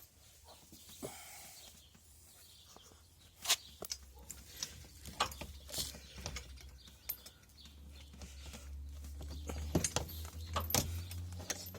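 Scattered metal clicks and knocks from tow bar hardware (pins, clips and brackets) being handled and fitted, with one sharp knock about three and a half seconds in and a cluster near the end. A low rumble builds underneath in the second half.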